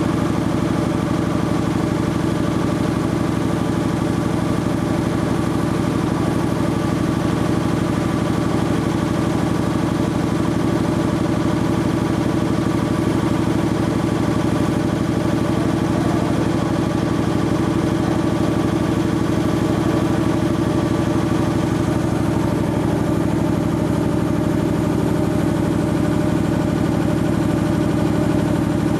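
Sperre HV2/200 marine air compressor running steadily on a test run: an even mechanical hum with strong steady low tones that neither rise nor fall.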